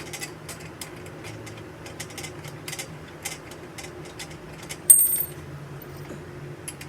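Irregular light metallic clicks and taps of small parts being handled while a microwave rack is assembled by hand. About five seconds in there is one sharper metal clink that rings briefly.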